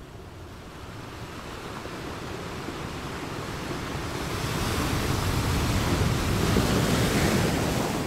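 Ocean surf: the wash of waves swelling slowly to a peak and falling away near the end.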